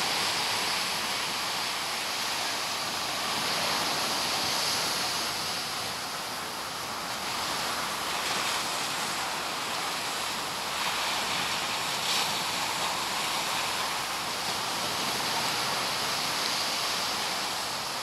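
Ocean surf breaking and washing up a sandy beach: a steady rush that swells and eases gently.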